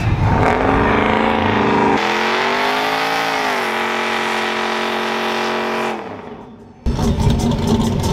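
Chevrolet Silverado pickup truck engines revving hard and held high during burnouts, the pitch swelling up and easing back before holding steady, with the rear tires spinning. The sound cuts abruptly to another burnout about two seconds in and again near the end, after a brief fade.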